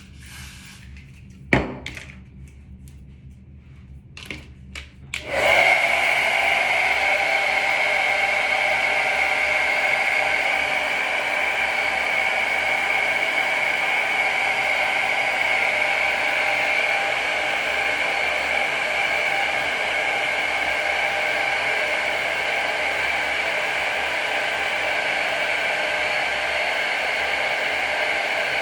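A few handling knocks and clicks, one sharper about a second and a half in. Then a hair dryer switches on about five seconds in and runs steadily, a loud rush of air with a high whine.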